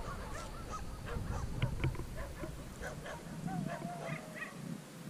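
Birds calling: a scatter of short calls, with one longer drawn-out call a little past the middle, over a low rumble that drops away about three seconds in.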